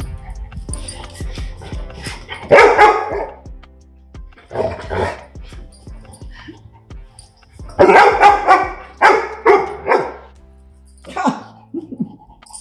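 Labrador retriever barking in short bouts: a bark about two and a half seconds in, another a couple of seconds later, then a quick run of four or five barks in the second half and one more near the end. Background music plays throughout.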